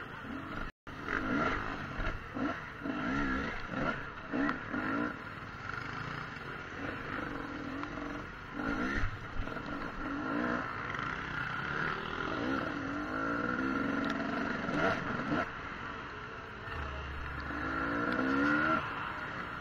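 Enduro dirt bike engine heard from on board, revving up and easing off again and again. The sound cuts out completely for a moment about a second in.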